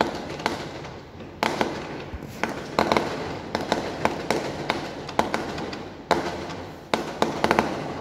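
Fireworks going off: about a dozen sharp bangs and crackles at irregular intervals, sometimes two or three in quick succession, each trailing off before the next.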